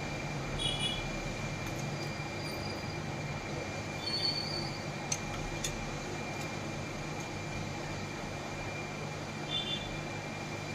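Handheld hot air rework gun blowing steadily on a Redmi 7A phone logic board to heat the network IC: an even rush of air with a thin, steady high whine. A few faint short chirps and a couple of light ticks sound over it.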